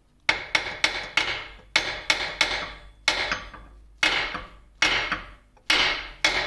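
Hammer striking a steel punch to drive a pin out of a gear shaft in a lathe headstock: a run of sharp metallic strikes, about two a second in small clusters, each ringing briefly.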